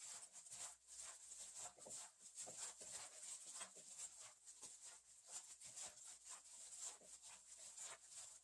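Faint, irregular wet squishing and rustling of blanched napa cabbage being mixed with a seasoning paste of chili powder, soy sauce, garlic and soybean paste.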